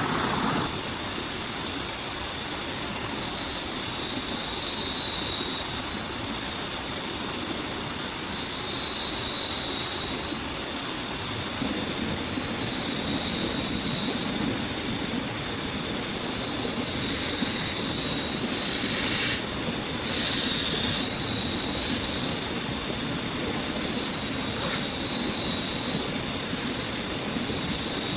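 Steady heavy rain falling, with a high-pitched whine running through it.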